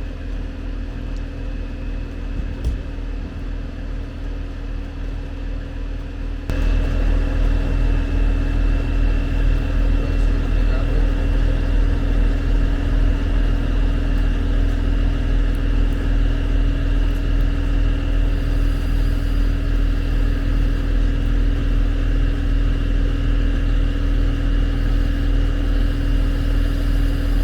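A heavy machine's engine running steadily at a constant speed, which gets abruptly louder about six and a half seconds in and then holds steady.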